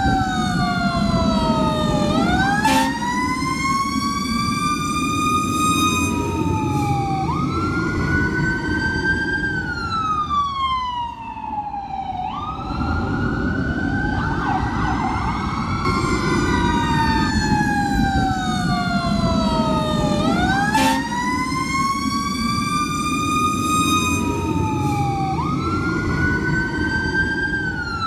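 Emergency vehicle sirens wailing, two or more overlapping, each sweeping up and down in pitch, over the steady low rumble of a moving car's road noise.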